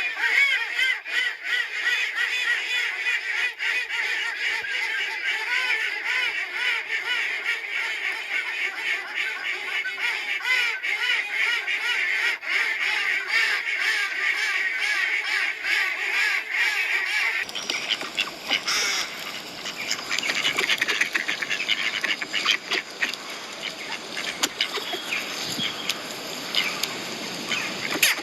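A flock of ducks and geese calling continuously, many quacks and honks overlapping. About two-thirds of the way through, the sound changes abruptly to a noisier mix of calls.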